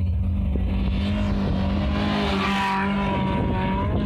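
Off-road rally jeep's engine running hard as it speeds along the sand track, with a steady drone that swells to its loudest about halfway through.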